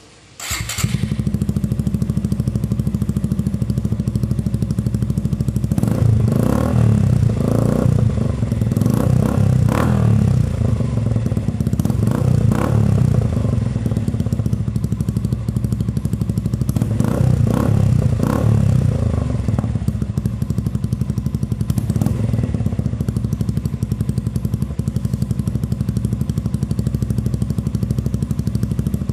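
Suzuki Gixxer 155 Fi single-cylinder engine running through an Akrapovic M1 slip-on exhaust with a honeycomb catalytic-converter dB killer fitted. It cuts in abruptly just after the start and idles steadily. It is blipped in a run of quick revs from about six to thirteen seconds in, and again around seventeen to nineteen seconds, then settles back to idle.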